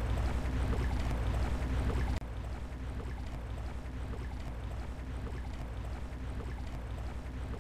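Boat motor running steadily with a low hum. It drops in level about two seconds in and carries on the same way.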